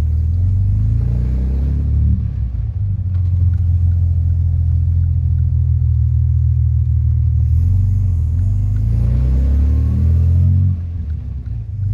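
1938 SS Jaguar 3½ Litre's overhead-valve straight-six engine running, its note rising about a second in and again from about eight to ten seconds, then dropping back near the end.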